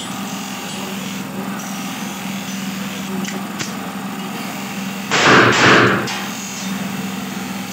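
AK-47-style gun firing about five seconds in: one loud report that peaks twice within under a second. Two faint clicks come shortly before it, over a steady low hum.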